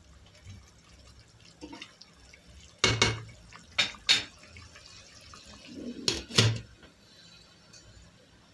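A wooden spoon set down on a plate beside a stainless steel cooking pot, a few knocks about three to four seconds in, then a glass lid put onto the pot with two clanks about six seconds in.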